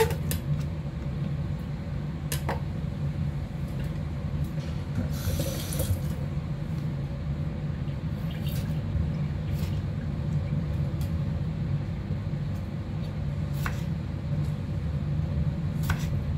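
Water running from a kitchen tap into the sink, a steady rush with a few light clicks and knocks and a brief brighter splash about five seconds in.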